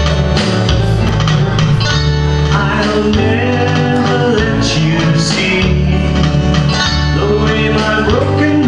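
A man's live song: guitar strummed and picked over a steady bass line that changes note every second or so, with his voice singing into a microphone.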